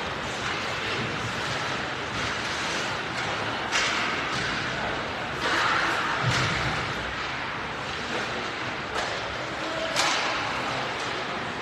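Ice hockey rink during play: a steady arena din broken by several sharp knocks and slaps, pucks and sticks striking the boards and ice.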